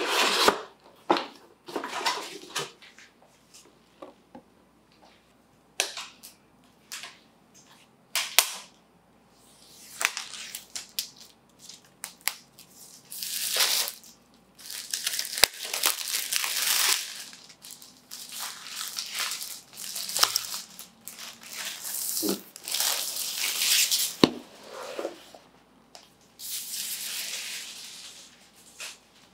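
Clear plastic shrink-wrap being torn and peeled off a cardboard product box, crinkling and crackling in repeated long stretches through the second half. In the first several seconds there are sharp clicks and taps as the box is handled.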